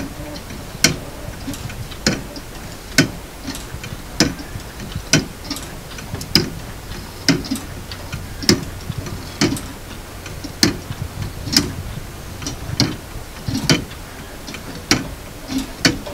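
A 3D-printed plastic pendulum clock with a weight-driven anchor escapement ticking as it runs: a sharp tick about once a second, with fainter clicks between them.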